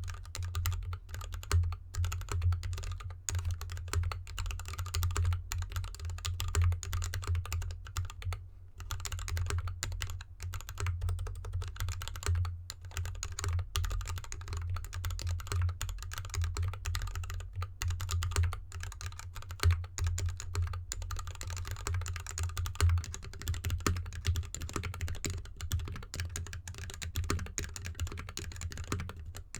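Continuous fast typing on a GK64X mechanical keyboard in an anodized aluminium case with dampening foam: lubed Gateron linear switches under DSA keycaps clacking in a quick, irregular stream. The keyboard sits on felt fabric, then on a desk mat from about 22 seconds in.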